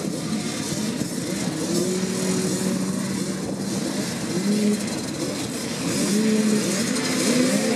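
Several small two-stroke moped motocross bikes idling and being revved at the start gate. Their engine notes rise and fall over one another, and the revving gets louder near the end.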